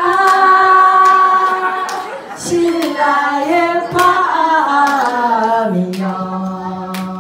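Women's a cappella group singing in harmony into microphones, the voices holding long chords that shift together. Near the end the lowest voice settles on a long held low note, and a few sharp clicks sound in between.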